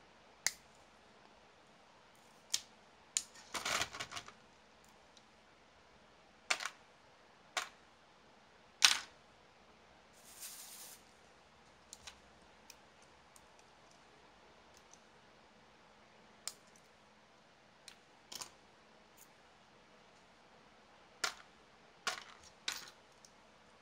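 Small plastic parts of a WLtoys 1/28 RC car being taken apart by hand: scattered sharp clicks and taps as pieces are worked loose and set down on a cutting mat, the loudest about nine seconds in. A brief rustle about ten seconds in.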